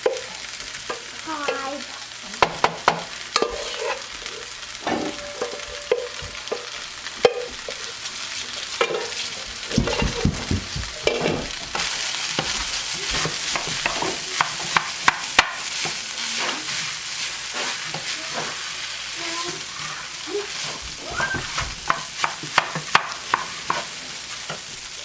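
Rice frying in a hot pan, sizzling steadily, while it is stirred with a utensil that clicks and scrapes against the pan many times.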